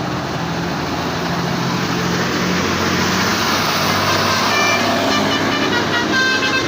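A heavy vehicle's engine labouring up a steep incline, growing steadily louder as it nears. Near the end, a bus's multi-tone telolet horn begins playing its chiming melody over the engine.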